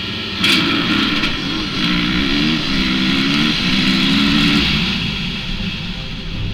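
Motocross bike engines launching off the starting gate: the onboard bike revs hard and pulls through the gears, its pitch holding and stepping at each shift, with the pack's engines around it. It comes in suddenly about half a second in and eases a little near the end.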